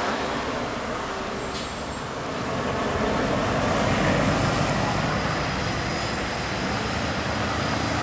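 High-deck tour coach driving past close by, its engine and tyre noise swelling to a peak about halfway through and then easing off.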